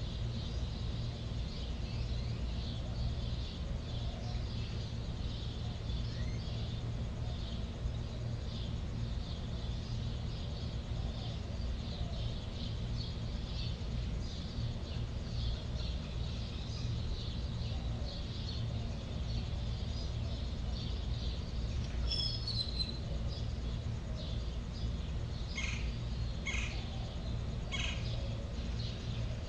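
Outdoor nature ambience: a steady low hum under continual faint high chirping, with a few louder, sharp chirps in the last several seconds.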